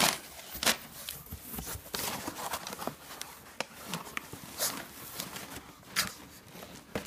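A cardboard box and its paper lining rustling and knocking as a pug roots around inside it, with irregular sharp clicks and crinkles.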